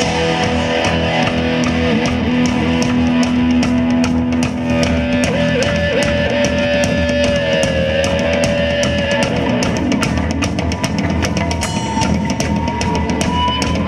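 Hard rock band playing an instrumental passage live, with drum kit and steady cymbal strokes, electric guitars and bass. Over it runs a lead line of long held notes that bend in pitch.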